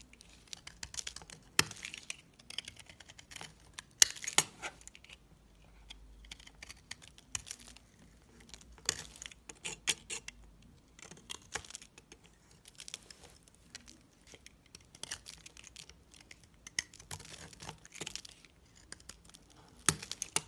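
Utility knife blade shaving and scraping a bar of soap: irregular crisp scratching and crackling strokes in short clusters, with a couple of louder cracks about one and a half and four seconds in.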